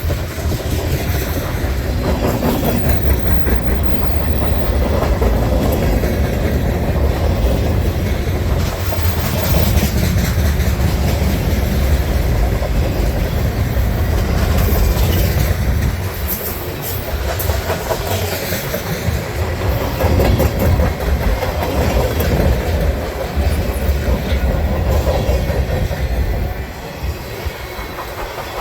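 Long mixed manifest freight train rolling past at speed: a steady rumble with the clack of steel wheels over the rail joints.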